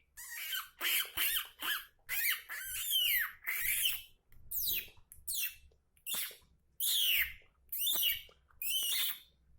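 A person imitating bird calls with the mouth: a string of about a dozen short chirps and squawks, many gliding down in pitch, with short gaps between them.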